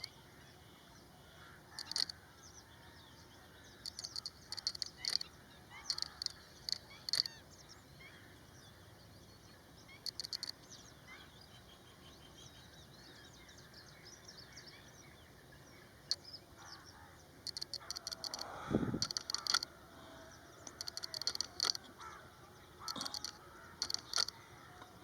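Birds calling in repeated bursts of rapid, sharp high-pitched notes, several seconds apart, over a steady outdoor hiss, with one brief low thump about three-quarters of the way through.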